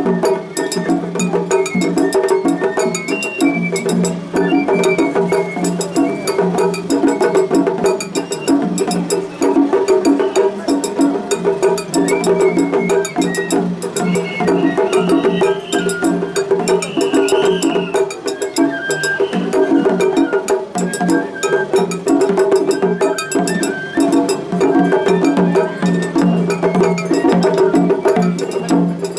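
Japanese festival hayashi ensemble playing: a shinobue flute line over rapid, continuous strikes of taiko drums and a small hand gong.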